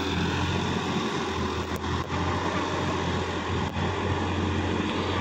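Sonalika DI-50 RX tractor's diesel engine running at a steady, even pitch as it drives a rotary tiller through wet mud, with a few faint ticks.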